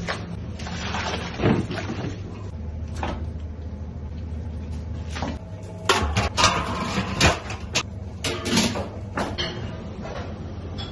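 Stainless steel cookware being handled: a steel insert and lid knocking and clanking against a large pot, in a busy run of clatters past the middle, over a steady low hum.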